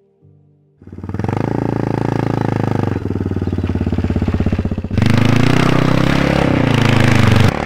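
Custom motorcycle engine, loud from about a second in, running with a steady fast pulsing beat of firing strokes. About five seconds in it turns louder and revs, its pitch rising and falling.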